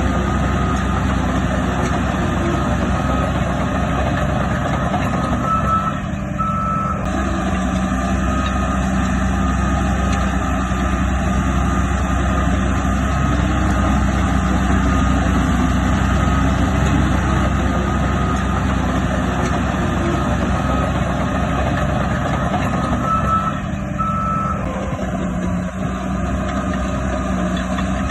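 Heavy diesel earthmoving machinery running steadily, with a backup alarm beeping repeatedly as a machine reverses. The beeps come through louder twice, about six seconds in and again near the end.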